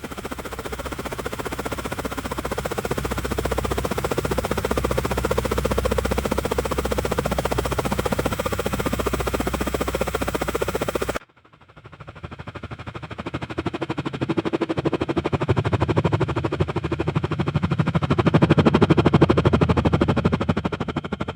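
Helicopter passing overhead: rapid, steady rotor-blade chop that cuts off abruptly about halfway. A second pass then fades in and grows loudest near the end.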